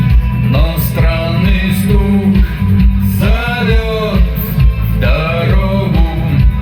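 A rock song playing: a man singing phrases over guitar, bass and drums.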